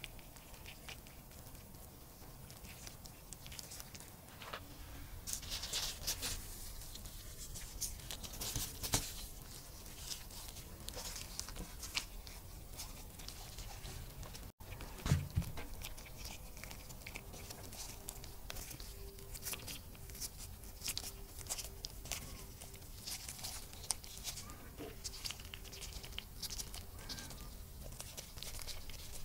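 Close-miked handling sounds: shredded mozzarella dropped onto the filling, then hands in nitrile gloves folding and pinching raw dough. Irregular soft crinkles, sticky taps and rustles, with a brief break about halfway.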